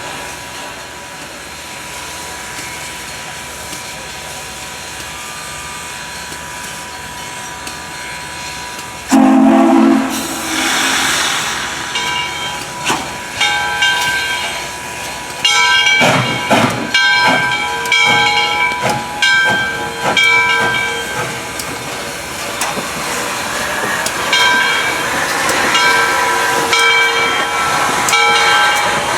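Southern Railway 630, a 2-8-0 steam locomotive, at work: steady background noise, then about nine seconds in a sudden loud burst of steam hiss, followed by repeated short, high metallic ringing tones over continuing hiss.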